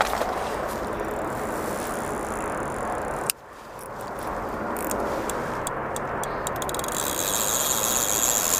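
Daiwa Regal Bite Run baitrunner reel screaming as a hooked common carp strips line off the spool. The steady screaming cuts off abruptly about three seconds in, then builds back up as the fish keeps taking line.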